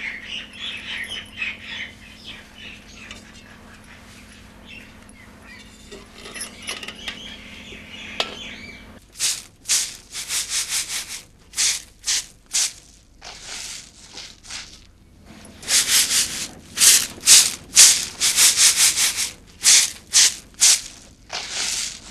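Rhythmic dry rubbing or swishing strokes from hand work, in quick runs of about three or four a second. They start about nine seconds in and are loudest in the second half. Before them there is only faint bird chirping over a low hum.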